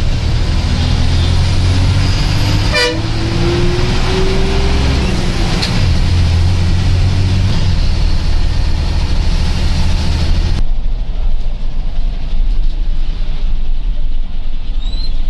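Bus engine running with road noise as the bus drives, the engine's pitch rising slowly over the first few seconds as it pulls away, with a horn tooting. About ten seconds in the sound changes abruptly to a duller engine rumble.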